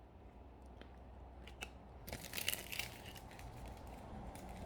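Trading cards being handled and flipped through: scattered light clicks, with a brief burst of rustling about two seconds in.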